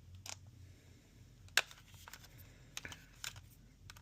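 A few small sharp clicks and ticks, the loudest about a second and a half in, from working on a PS5 controller while its case screws are being taken out.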